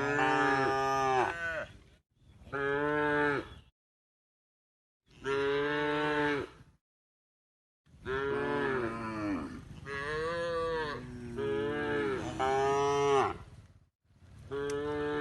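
A cow mooing repeatedly: a series of long, pitched moos that bend in pitch, a second or two apart, with three running together in the middle and another starting near the end.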